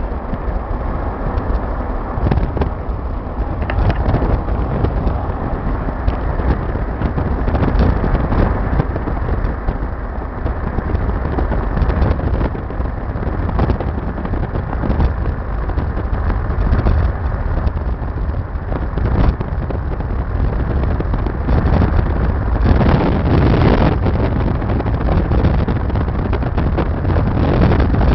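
A car driving along a highway, its road and engine noise buried under heavy wind buffeting the microphone.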